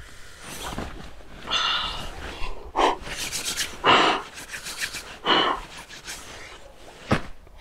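A man blowing his breath into cupped hands to warm them, about four breathy puffs roughly a second apart, with a short click near the end.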